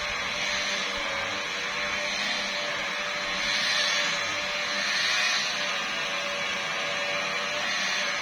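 Electric car polisher running steadily on a car's painted hood during the first polishing step, a continuous motor whine with pad hiss that swells slightly a couple of times.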